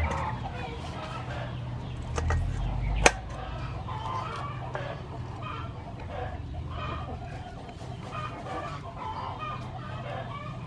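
Chickens clucking repeatedly in short calls, with a single sharp click about three seconds in.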